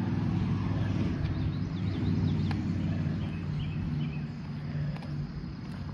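A small vehicle's motor running with a steady low hum as it rolls along a paved road, with a few faint bird chirps.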